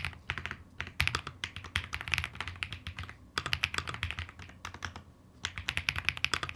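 Typing on an Akko MonsGeek M1 V5 aluminium-case mechanical keyboard: quick runs of key clacks with short pauses between words, a sound test of the keyboard.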